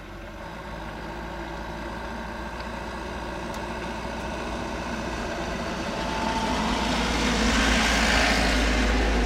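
A motor engine running steadily with a low rumble and a hum, growing gradually louder.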